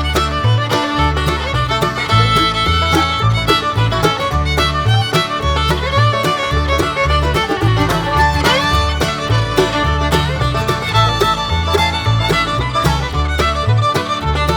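Background music led by fiddle, with a steady, regular bass pulse.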